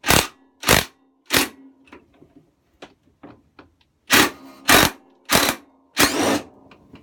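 A ratchet spanner being worked back and forth to undo a nut on the mower, giving short, sharp ratcheting strokes: three in the first second and a half, then four more from about four seconds in. The nut is coming out easily.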